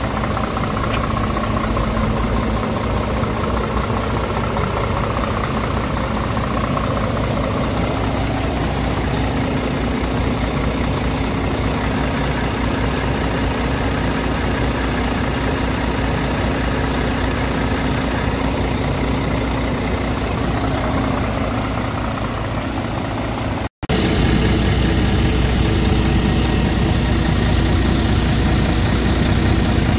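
Scania R450's 13-litre straight-six diesel idling steadily. The sound breaks off for an instant about two-thirds of the way through, then resumes a little louder.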